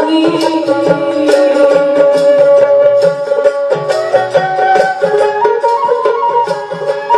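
Live folk band playing an instrumental passage: a held melody line with plucked strings over a steady percussion beat, no singing.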